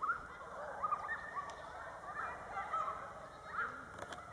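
Repeated short honking bird calls, about two a second.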